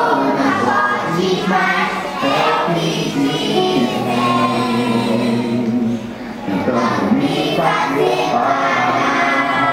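A Portuguese-language Christian worship song playing, with sung vocals over accompaniment and young children singing along.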